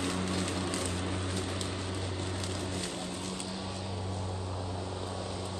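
Greenworks Pro 80V brushless cordless lawn mower running while cutting grass: a steady low motor and blade hum that grows a little fainter about halfway through.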